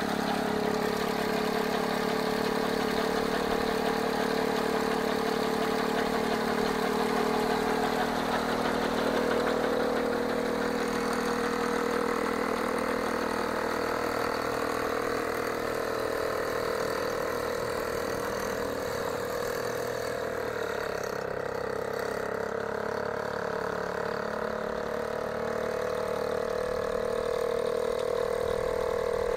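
Eagle ultralight aircraft's engine and propeller running steadily at low power while taxiing, the pitch edging slowly higher over the course of the run.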